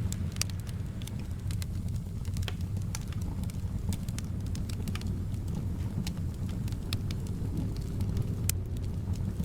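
Wood fire crackling, with irregular sharp pops and snaps over a steady low rumble of soft wind.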